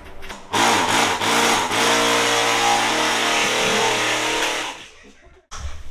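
An electric power tool motor starts sharply about half a second in, runs steadily for about four seconds, then winds down and stops near the end.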